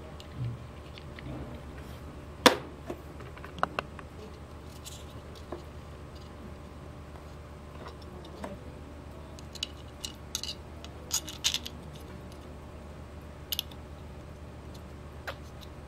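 Scattered clicks and taps of 3D-printed plastic lock-box parts being handled and taken apart, with one sharp click about two and a half seconds in the loudest and clusters of lighter clicks later on, over a steady low hum.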